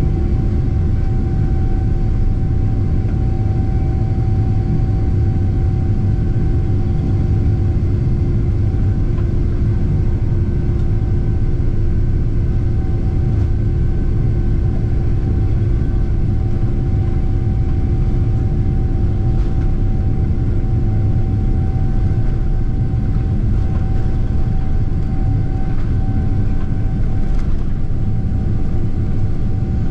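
Boeing 777-300ER's GE90 turbofan engines at takeoff thrust, heard from inside the cabin: a loud, steady rumble with a constant fan hum over it.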